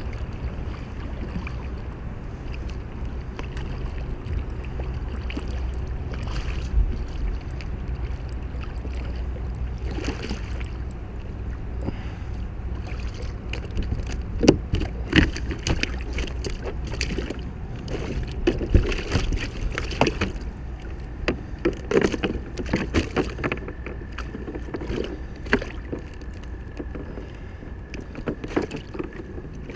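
Low, steady rumble of water and wind around a kayak, then from about halfway through a run of sharp knocks and clicks against the kayak.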